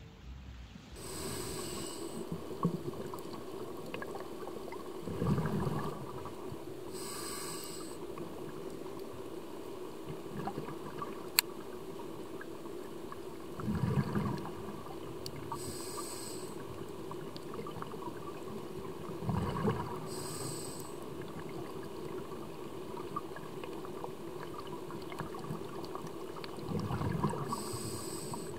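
Scuba diver breathing through a regulator underwater: a hissing inhale, then a few seconds later a gurgling rush of exhaled bubbles, about four or five breaths, over a steady low hum.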